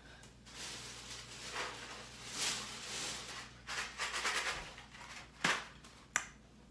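Rustling and handling noises that swell and fade several times as a hairbrush is fetched and picked up, with two sharp knocks near the end.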